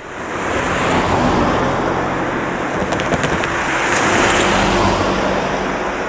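A car passing close by, tyre and engine noise swelling and fading, loudest about four seconds in.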